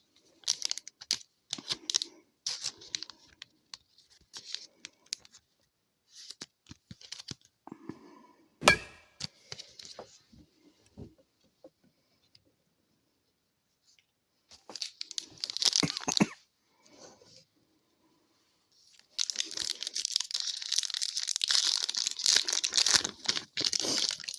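Hockey card packs being handled: cards rustling and flicked through in short bursts, one sharp snap about nine seconds in, then a foil pack wrapper torn open and crinkled for the last five seconds.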